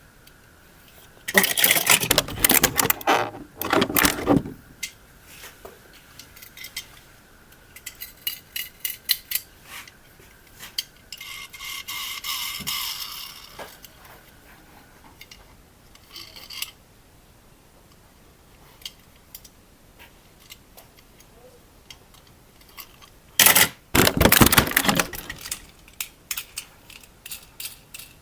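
Handling noise of small hard objects: scattered clicks and rattles, with two loud stretches of rustling or scraping, one starting about a second in and one near the end. A faint steady whine runs under the first half and stops.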